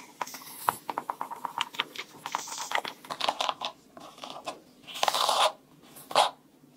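Detangling brush dragged through wet curly hair, a quick crackling run of small clicks and scratches as the bristles pull through knots. Two short hissing bursts near the end.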